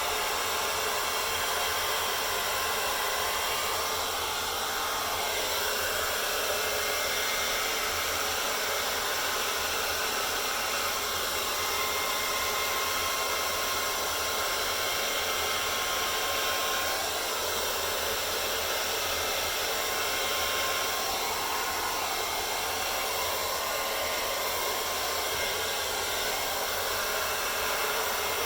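Hair dryer running steadily, blowing air across wet acrylic paint in a dutch pour, with slight rises and falls in level.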